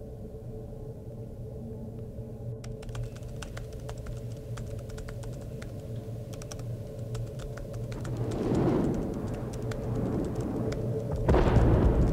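A steady low hum under light, irregular clicks that start a few seconds in, like keys being tapped. Near the end, two swells of hissing noise come in, the second the loudest thing heard.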